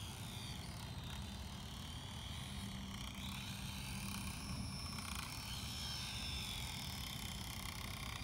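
Small Petrel FPV quadcopter drone in flight, its propellers whining in a high pitch that rises and falls as the throttle changes, over a steady low rumble.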